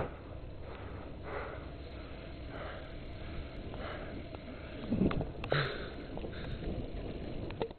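Quiet sniffing breaths, one about every second, with a few light knocks about two-thirds of the way through.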